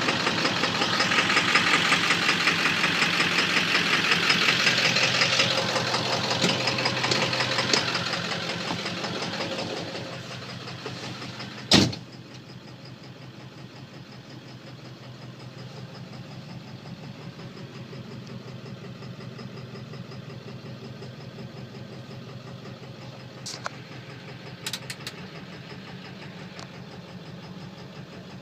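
7.3 L Powerstroke V8 turbo-diesel running at idle with a rapid, steady knock, which the owner records as an engine knock. Loud at first, the engine sound drops sharply after a single sharp bang about twelve seconds in, and a few light clicks follow later.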